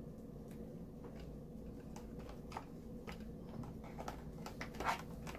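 Faint scattered clicks and ticks of a screwdriver driving screws by hand into the steering wheel's plastic trim piece, with one louder knock about five seconds in.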